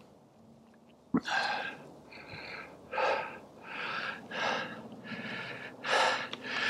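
A man breathing hard from exertion, quick heavy breaths in and out, roughly one or two a second, starting about a second in.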